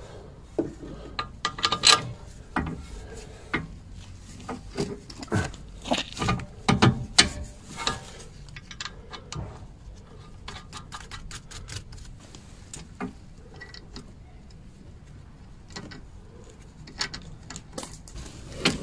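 Irregular metallic clicks and knocks of hand tools at work on a car's front stabilizer link, as a wrench is fitted to and turned on the link's nut. There is a quick run of fine clicks about nine seconds in, and the knocks thin out after that.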